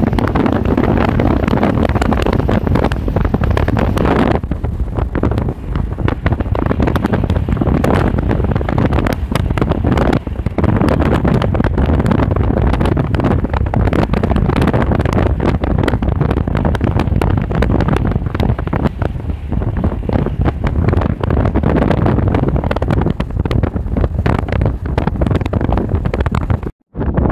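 Strong wind blowing across the camera microphone: a loud, steady, unpitched rush with most of its weight low down, briefly cut off near the end.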